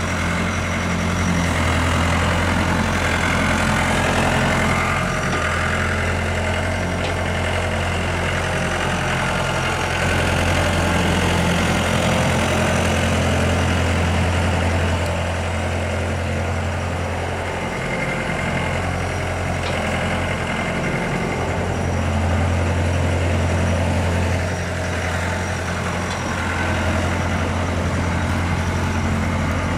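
Daewoo S55 V mini excavator's diesel engine running steadily while the machine is operated: a continuous low hum whose note dips briefly a few times.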